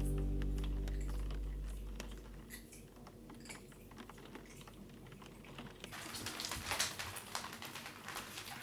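Background music fading out, then a run of light, quick clicks and taps that thicken into a dense patter of ticks about six seconds in.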